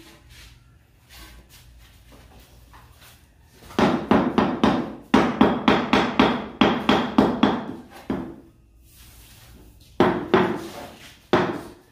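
Large ceramic floor tiles being tapped down into a wet cement bed with a hammer to seat them. A fast run of sharp knocks, about four or five a second, starts about four seconds in and stops about eight seconds in, then two single knocks follow near the end.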